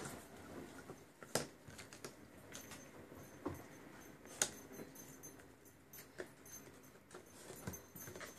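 Cardboard jigsaw puzzle pieces being handled and pressed down on a wooden tabletop: a handful of faint, irregular taps and clicks.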